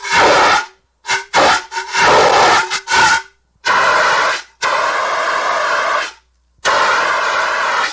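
Fire extinguisher discharging in a series of hissing spray bursts: several short blasts in the first three seconds, then longer sprays of about one to one and a half seconds each.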